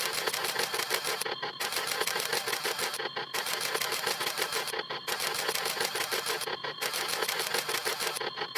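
Camera shutter-snap sound effect repeated rapidly, many clicks a second, in runs broken by a short pause about every second and three-quarters.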